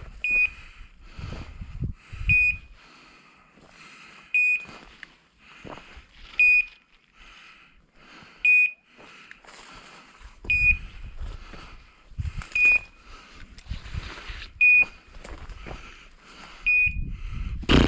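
A hunting dog's beeper collar giving a short, high beep about every two seconds, over the rustle and crackle of someone pushing through dry scrub.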